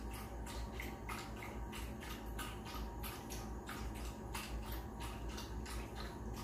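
A Pekingese lapping water from a metal bowl: a run of small wet laps, about three a second.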